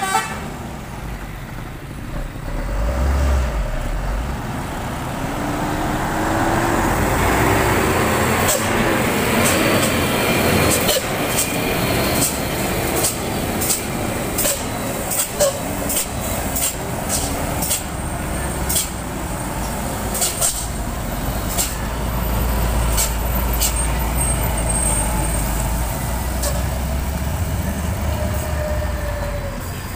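Hino tanker trucks' diesel engines running as they pass slowly one after another, with repeated short air-brake hisses from about eight seconds in. The trucks may be running low on brake air.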